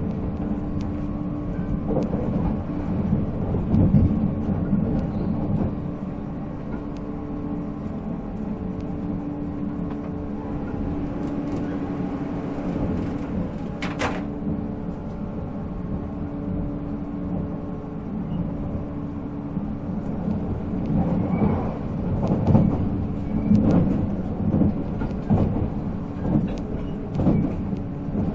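Onboard running sound of a 485-series electric train: the steady hum of its MT54 traction motors and gearing over the rumble of the wheels on the rails. Rail-joint clatter and knocks come near the start and again in the last third, with one sharp click about halfway through.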